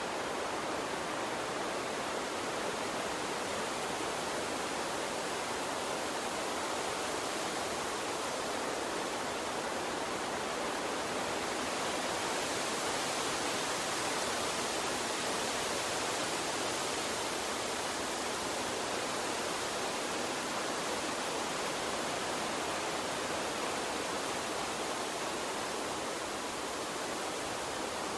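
Gentle water stream running steadily, an even rushing flow that brightens slightly in the upper hiss about halfway through.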